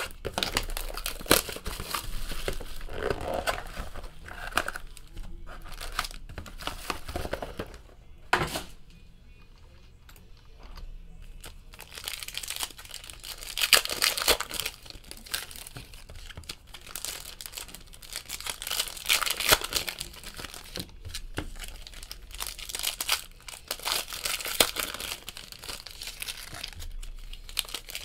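Plastic wrapping crinkling and tearing as a sealed box of trading cards is unwrapped and its card packs are torn open by hand, in irregular flurries with a quieter pause a little before the middle.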